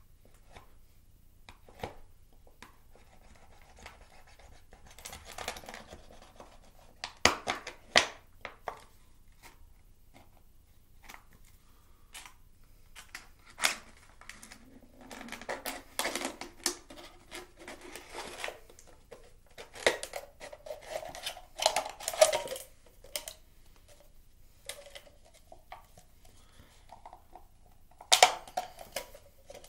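Knife blade cutting and sawing through a thin plastic soda bottle: crackling and crinkling of the plastic with sharp clicks and scraping, coming in irregular bursts.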